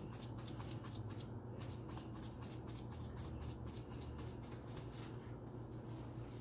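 Faint rustling and small light clicks of food and containers being handled during salad preparation, over a steady low hum.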